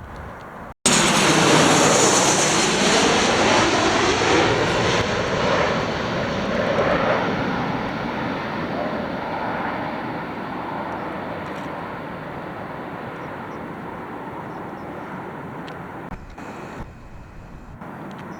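Jet airliner passing close by, its engine noise starting abruptly about a second in at full strength, with a sweeping whoosh as it goes by, then slowly fading away.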